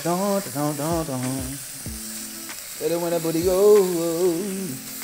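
Lobster tails sizzling in olive oil in a cast-iron skillet as they are turned with tongs. Over the sizzle runs a singing voice with a wavering melody, in two phrases, the second starting a little before halfway.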